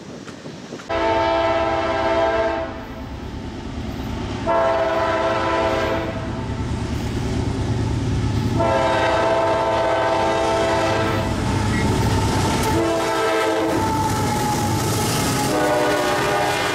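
CSX diesel freight locomotive's air horn sounding a chord in repeated blasts: several long ones, a short one, then another long one, the pattern a locomotive sounds for a grade crossing. Under the horn runs the steady rumble of the approaching train.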